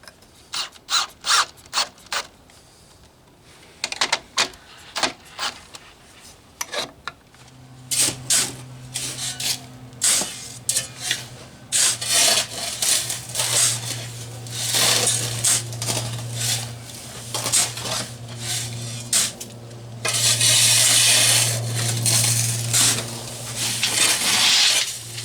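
Sharp knocks and clicks, then from about a third of the way in a steady low hum under a long clatter and scrape of crushed rock: ballast gravel being dumped and spread onto a newly laid track bed. The pour is loudest and most continuous near the end.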